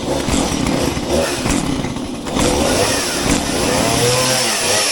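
Two-stroke chainsaw engine running freshly serviced: it revs up and down, its pitch sweeping about three to four seconds in, then settles toward a steady idle near the end.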